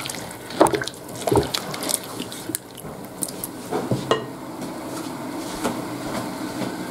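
A spoon stirring soaked rice into boiling chicken broth in a metal pot, with a few sharp knocks against the pot in the first four seconds. After that the broth bubbles steadily and more quietly.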